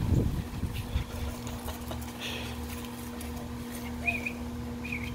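Corgi and miniature schnauzer puppies play-wrestling, with a short scuffle at the start and a couple of brief high squeaks near the end, over a steady low hum.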